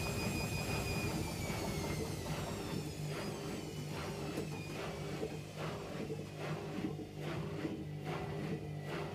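Hotpoint front-loading washing machine on its spin cycle: a high motor whine falls in pitch about a second in as the spin slows, giving way to a regular knocking about twice a second over a steady low hum, a beat like dance music.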